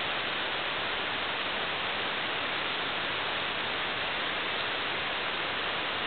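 Steady, even hiss with no bird calls and no other distinct sounds.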